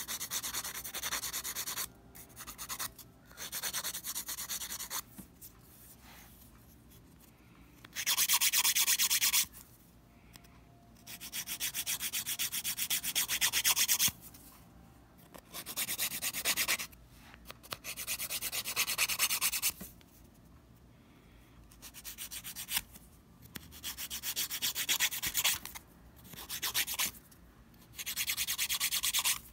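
Hand nail file rasping quickly back and forth across fingernail tips to shape them, in bursts of one to three seconds with short pauses between.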